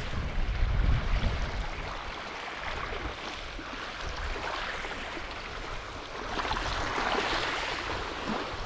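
Wind buffeting the microphone over small waves washing and splashing at the water's edge, with a louder rush of water about six to eight seconds in.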